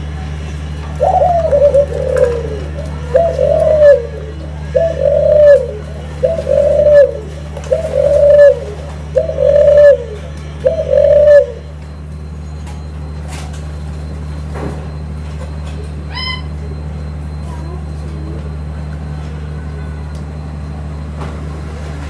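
Ringneck dove (puter) cooing: seven coos about a second and a half apart, each slightly falling in pitch, then it stops about halfway through.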